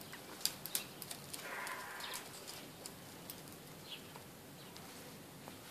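Light, scattered clicks and taps on a stone balcony ledge as a hooded crow hops about close to a dog, with a soft rasping sound lasting under a second about one and a half seconds in.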